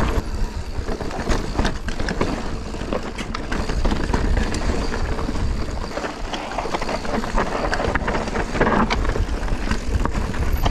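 Mountain bike riding down a loose, rocky dirt trail: steady wind rumble on the mic, tyres crunching over gravel, and many quick rattles and knocks from the bike over the rocks.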